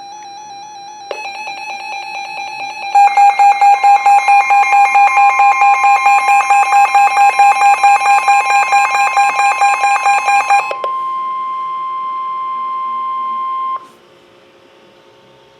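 Weather radio warning alert: a loud electronic beeping alarm pulsing several times a second, overlaid partway in by the steady 1050 Hz NOAA Weather Radio warning alarm tone. The beeping stops about eleven seconds in. The tone carries on alone and cuts off suddenly near the end, leaving faint radio hiss.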